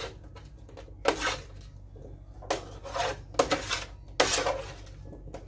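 Large metal spoon scraping and clattering across a metal sheet pan as roasted potato chunks are tossed in vinegar, in five or six short scrapes.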